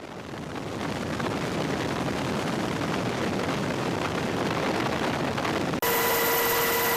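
Jet aircraft engine noise: a rushing roar that builds over the first second and holds steady, then an abrupt cut about six seconds in to a steady turbine whine with a high-pitched tone.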